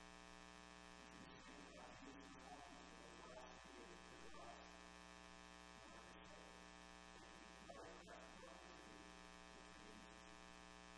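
Near silence: a faint, steady electrical buzz, with barely audible traces of a voice under it.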